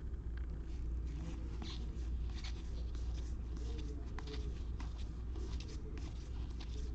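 2021 Topps Series 1 baseball cards being flipped through by hand: a quick run of short papery slides and flicks as cards are moved from the back of the stack to the front, over a steady low hum.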